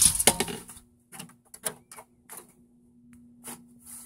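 A short scraping rush, then a string of light, irregular clicks and taps as the metal control box of a swing-gate operator and its cover are handled, with a faint steady hum underneath.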